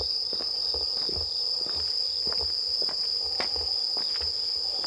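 Steady high-pitched chorus of night insects, with footsteps scuffing along a stone-paved path.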